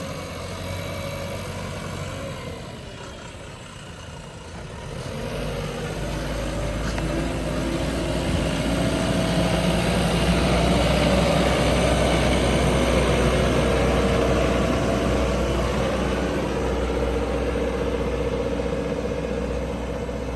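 JCB backhoe loader's diesel engine running, quieter at first, then rising from about five seconds in and holding at a louder, working pitch.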